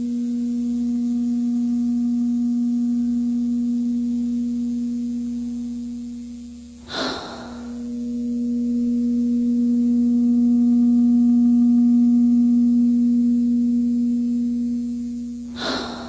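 Tattoo machine buzzing as one steady low hum that swells and fades. It dips briefly about seven seconds in with a short hissing rush, swells again, and fades near the end, where another short rush comes.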